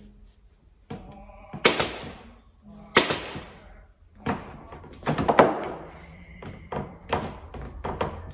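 Pneumatic staple gun firing staples through reed weave into a chair frame: sharp shots about a second and a half apart, followed by a louder burst and several softer knocks.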